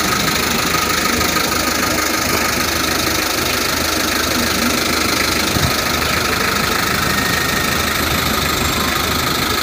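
A 2010 Hyundai Starex van's engine idling steadily during a test run after repair for overheating, with a steady whir over it. The engine is being checked for overheating with a newly fitted auxiliary fan, and the mechanic judges it to be running very smoothly.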